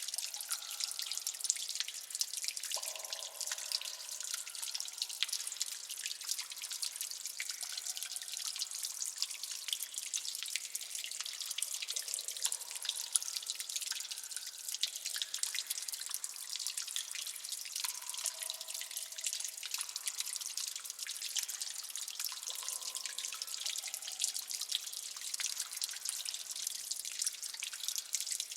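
Water dripping in many places at once: a dense patter of small drops with frequent pitched plinks of drops falling into water, the sound of underground leaks.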